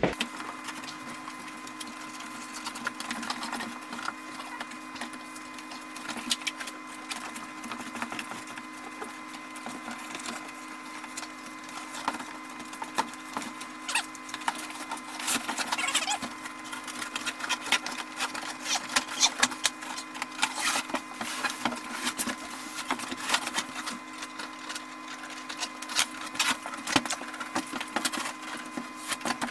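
Headliner fabric being peeled and torn off its foam-backed board, sped up into a fast, busy crackling and scratching over a steady hum.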